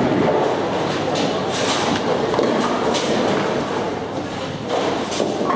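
Bowling alley din: balls rolling and pins clattering on the lanes, with a couple of sharper pin crashes about one and a half and three seconds in, over a wash of background voices.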